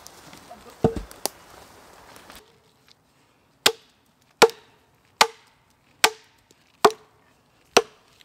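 Axe chopping into a log: six sharp strokes a little under a second apart, starting about halfway through, each with a short wooden ring. A single thump comes about a second in.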